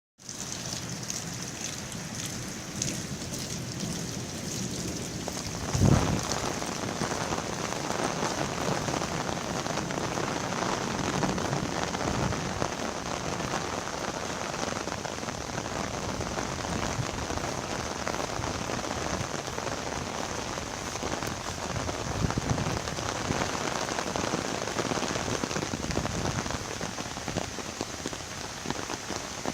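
Steady rushing of a raging, fast-flowing river, with a low thump about six seconds in.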